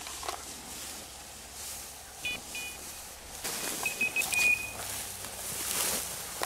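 Rustling and swishing of dry tall prairie grass as people walk through it, with a few short, high electronic beeps about two seconds in and again past the middle.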